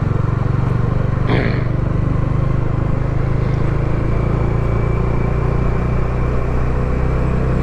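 Motorcycle engine running steadily on the move, picked up by a lavalier mic on the rider's helmet chin curtain. A short falling tone cuts in about a second in.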